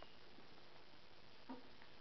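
Near silence: faint room noise with a couple of soft clicks, one about a second and a half in.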